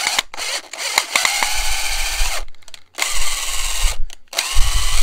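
Power drill driving the mounting-tab screw of a plastic old-work electrical box, in three runs: a long one, a shorter one, then a brief one near the end. This is a test run, turning the screw all the way in to check that the tab's threads don't bind before the box goes into the wall.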